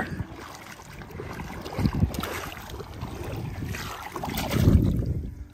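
Wind buffeting the microphone: an uneven low rumble that swells briefly about two seconds in and more strongly near the end.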